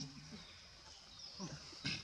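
Macaque monkeys' soft vocalizations: a short call trailing off near the start, then a brief falling grunt about one and a half seconds in, followed by a sharp click just before the end. A faint steady high-pitched whine runs behind.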